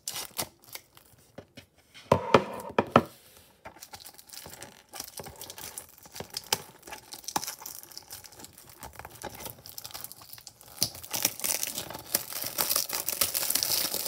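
Plastic shrink wrap being torn and peeled off a DVD case: irregular crinkling and crackling with sharp clicks, louder about two seconds in and growing denser and louder in the last few seconds.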